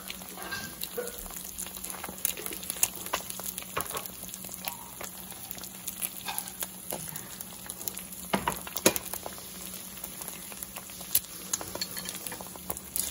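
Eggs frying in oil in a nonstick pan: a steady sizzle with scattered crackles and pops, two of them louder about eight and a half seconds in.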